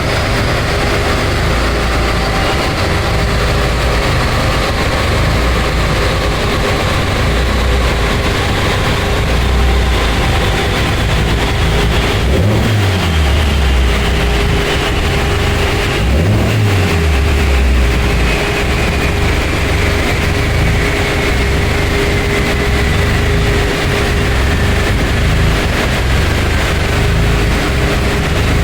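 AE82 Toyota Corolla engine with 300/294 cams running steadily on a chassis dyno, with a faint whine that falls slowly in pitch throughout and two brief low surges about halfway through.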